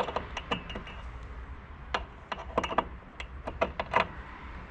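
A metal E-track strap fitting clicking and rattling against the steel E-track rail as it is worked into a slot until it locks in place, with a scatter of irregular sharp clicks.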